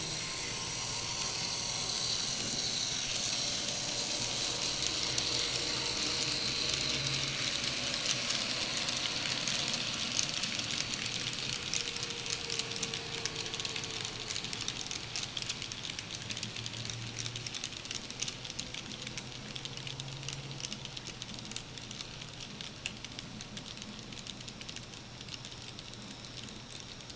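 N-scale model trains running along the track: a steady whirring hiss from the motors and wheels, with many small clicks from wheels running over the rails, gradually getting quieter toward the end.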